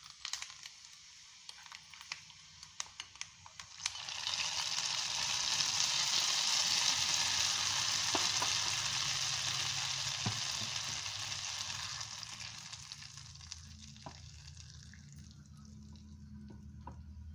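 Hot ghee with fried coconut pieces poured from a small pan into tapioca coconut-milk payasam in a clay pot, sizzling loudly from about four seconds in. The hiss dies away over several seconds as the payasam is stirred with a wooden spoon. A few light clicks come before the pour.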